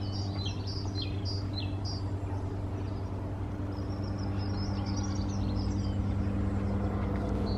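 Small birds chirping repeatedly over a steady, low mechanical hum.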